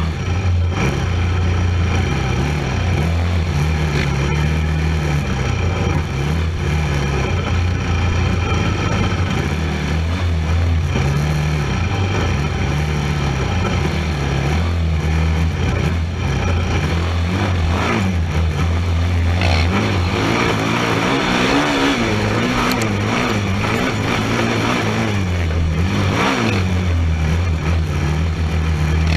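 Race quad's engine running hard on a trail, heard from on board, its revs rising and falling with the throttle. From about twenty seconds in, for some six seconds, it revs higher with a wavering pitch before dropping back.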